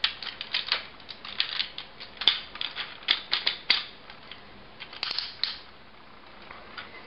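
Hard plastic parts of a Transformers Galaxy Convoy toy clicking and knocking as it is handled and its pieces are fitted together: a quick run of sharp clicks for about four seconds, a short rattle about five seconds in, then it goes still.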